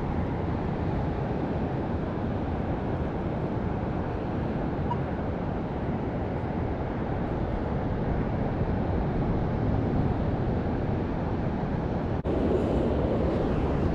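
Steady rushing noise of wind and surf on a beach, with wind buffeting the microphone. It breaks off for an instant about twelve seconds in and comes back a little louder.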